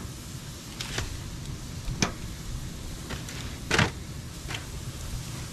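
A long meat fork clicking and scraping against a barrel smoker's grate and a foil pan as raw tri-tips are laid on the grate over the fire: several sharp clicks, the loudest about four seconds in, over a steady low rumble.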